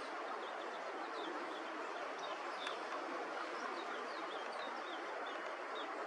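Small birds chirping over a steady rushing background noise. The chirps are short, high and falling, about two or three a second.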